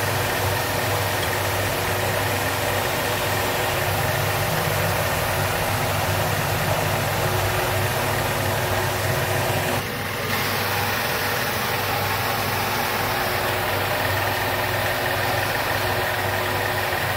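Steady mechanical drone with a low hum and a rushing hiss. It dips briefly about ten seconds in.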